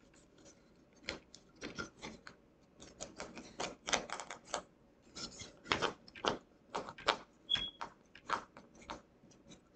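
Heavy-duty tape crinkling and a thin wooden frame board tapping and sliding against the tabletop as it is handled: a string of irregular crackles and taps.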